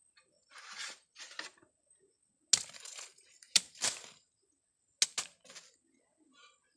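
A fresh bamboo shoot is being stripped of its sheaths by hand. First come a couple of short tearing rustles, then several sharp cracks as the layers snap away, some of them in quick pairs.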